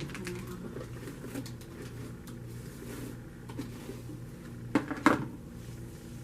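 Light handling noises with two sharp clicks close together near the end, over a steady low hum.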